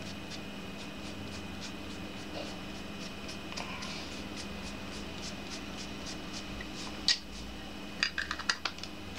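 Fingers rubbing and patting makeup onto the face: faint light scratches and taps over a steady low room hum. A sharper click comes about seven seconds in, and a quick run of clicks about a second later.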